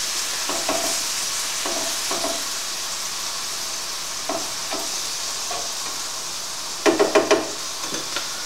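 Chicken strips and vegetables sizzling steadily in a frying pan with a little water added, stirred with a utensil that scrapes and taps against the pan every second or so. A few louder clatters about seven seconds in.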